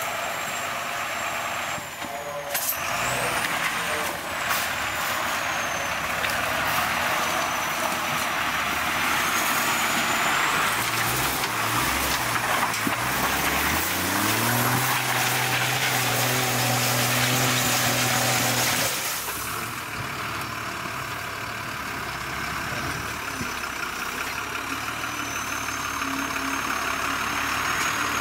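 Ural six-wheel-drive trial truck's engine working hard under load as it crawls over rocks, with a faint high whistle over it. The engine note rises about halfway through, holds steady, then drops off sharply about two-thirds of the way in.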